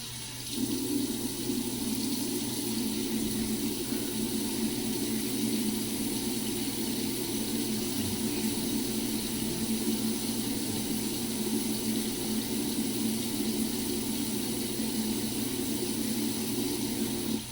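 Mary Kay Skinvigorate sonic cleansing brush buzzing steadily as it scrubs cleanser off the face. It starts about half a second in and stops near the end.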